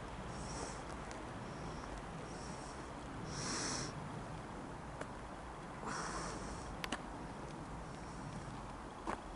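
Faint, steady, distant rumble of an Airbus A321-231 airliner's IAE V2500 turbofans as it descends overhead. Several short, soft hissing puffs sound close to the microphone, the loudest about three and a half seconds in, along with a few faint clicks.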